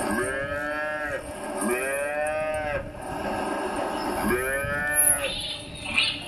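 Cattle mooing: three long calls, each rising then falling in pitch, the first two close together and the third after a short pause.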